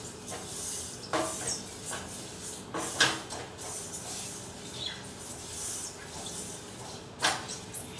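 A metal spoon stirring sesame seeds as they dry-roast in a stainless steel pan: a grainy scraping and rustle of seeds over the metal, with a few sharp clinks of the spoon against the pan, about a second in, around three seconds in and near the end.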